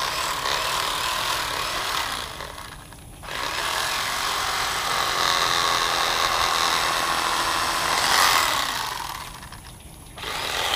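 Electric fillet knife buzzing as it saws through a blue catfish fillet, run in bursts. It is on for about two seconds, stops briefly, runs for about six seconds, stops again, and starts once more near the end.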